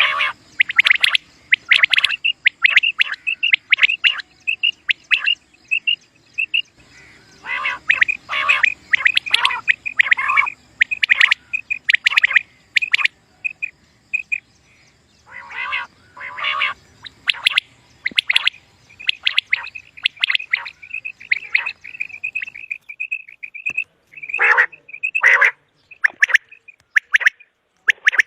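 Common quail calling over and over: quick runs of short, high, clear notes broken by clusters of louder, harsher calls.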